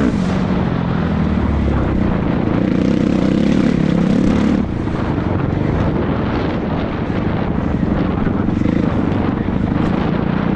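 Motocross bike engine running hard under race conditions, a steady loud drone that eases off in level about halfway through.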